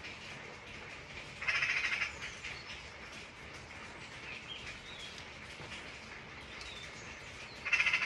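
Steady rain falling, with two short, loud bird calls over it, one about a second and a half in and one near the end, each lasting about half a second.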